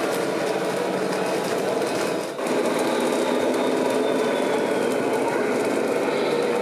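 Steady whirring of the small electric motors and gearboxes of radio-controlled scale model trucks and construction machines, with a high whine that falls slowly in pitch in the middle; the sound dips briefly about two seconds in.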